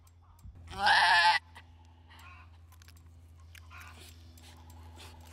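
A labouring doe goat bleats once in distress, loud and wavering, lasting under a second, about a second in. She is straining while a breech kid is pulled out by hand.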